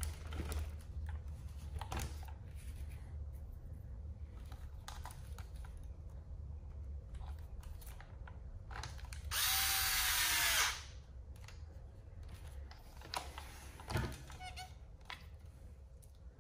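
A small electric hex driver runs once for about a second and a half, driving a screw into plastic, its whine dipping as it stops. Light clicks of parts and tools being handled come before and after it.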